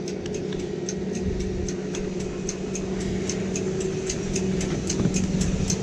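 Chairlift machinery at the loading station: a steady mechanical hum with a regular ticking, about three ticks a second.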